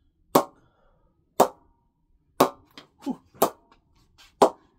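A cricket ball bounced again and again off the face of a new SS English willow cricket bat, giving a sharp knock about once a second, five strong strikes with two lighter taps between the third and fourth. The crisp ping is the bat's response off the willow, shown off as a sign of a good-playing blade.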